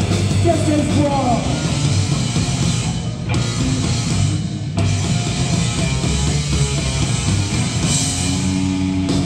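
Anarcho-punk band playing live: electric guitar, bass guitar and drum kit, with a singer at the microphone.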